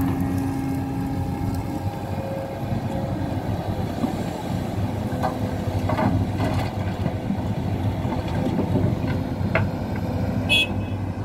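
Hidromek HMK 500LC excavator's diesel engine running steadily under hydraulic load as the machine swings and empties a bucket of soil into a dump truck. Knocks of earth and stones landing in the steel truck bed come around the middle, and a brief high squeak sounds near the end.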